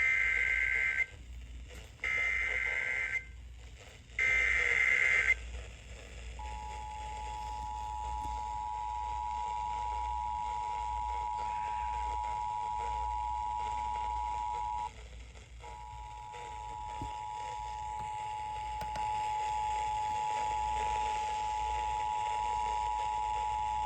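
Emergency Alert System activation heard over a radio: three short, shrill digital warbles of the SAME header data, about a second each, then the steady two-tone EAS attention signal, which drops out briefly partway through and resumes. It marks the start of an alert, here a severe thunderstorm warning.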